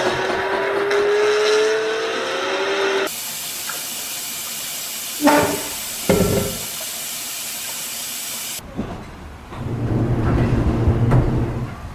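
Cartoon sound effects: gliding tones for about three seconds, then a steady loud hiss with two thumps in its middle, then a low rumble near the end.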